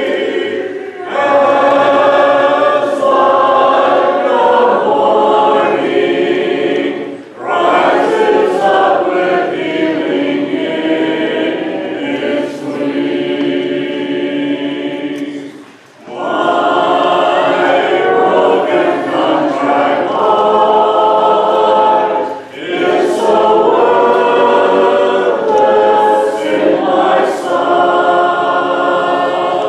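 Church congregation singing a hymn a cappella, with no instruments, in sung phrases of several seconds separated by brief pauses for breath.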